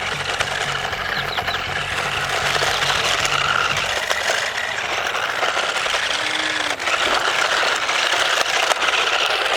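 Toy RC stunt car's small electric drive motors and plastic gearboxes whirring, with plastic rattling. A low, even pulsing underneath stops about four seconds in.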